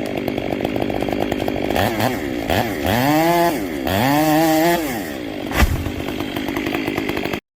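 Gas chainsaw running and cutting wood, its engine pitch swinging up and down with the throttle and rising sharply twice in the middle. It cuts off abruptly near the end.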